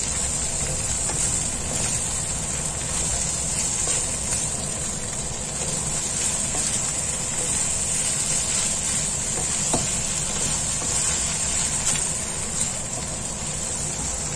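Pancit noodles and vegetables sizzling in a hot wok as they are stirred and tossed: a steady frying hiss over a low rumble, with a few light clicks of a wooden spatula against the pan.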